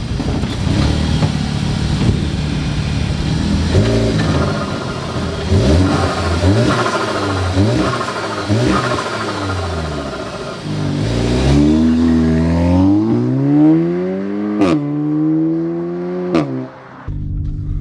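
Audi S3's turbocharged four-cylinder engine, run with its diverter valve removed, accelerating hard on the road. The revs climb and fall through several gear changes, then two long rising revs cut off sharply with a short burst as the throttle is lifted.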